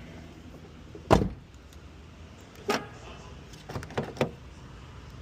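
A few sharp clunks and clicks: one loud clunk about a second in, another a little later, then a quick run of lighter knocks near the end.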